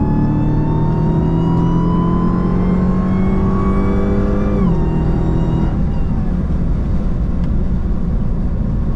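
Dodge Hellcat Redeye's supercharged Hemi V8 pulling under acceleration, its note and the high supercharger whine above it climbing steadily for about four and a half seconds. The pitch then drops sharply and the engine fades into a steady rumble of road noise.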